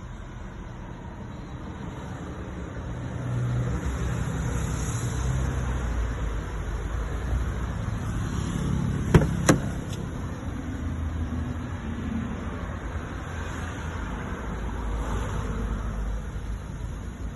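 Car engine and road noise, a steady low rumble that swells a little about three seconds in, with two sharp clicks about a third of a second apart near the middle.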